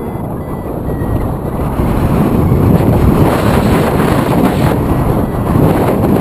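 Wind noise from the airflow of paraglider flight buffeting the camera's microphone, a loud low blustering hiss that swells and dips, growing louder about a second and a half in.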